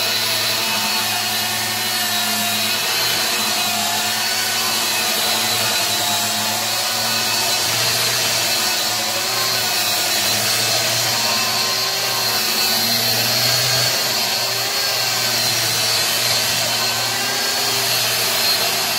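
Electric angle grinder with a sanding disc running steadily at full speed, a constant high whine over the rasp of the disc sanding a flat wooden panel.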